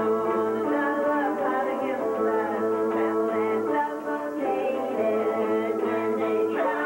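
Electronic keyboard and guitar playing together, the keyboard holding long sustained chords that change a couple of times, with a wavering melody line above.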